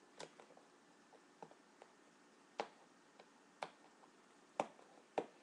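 A handful of separate sharp clicks and taps from hands handling a doll's cardboard box with a clear plastic window.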